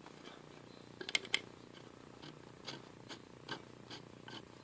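Light metallic clicks and taps from a steel gear being pried and worked on its shaft in a quick-change lathe gearbox: a quick cluster of three about a second in, then single clicks every half second or so. The gear is binding on a damaged shaft and won't slide.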